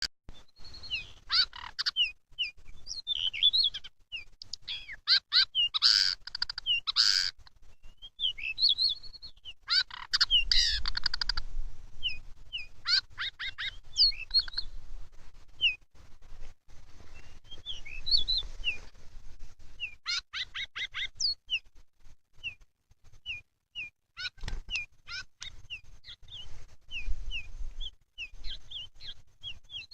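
Pied bushchat (decu) song played as a bird lure. It is phrase after phrase of short, sharp chirps and fast trills, coming in bursts with brief pauses between them.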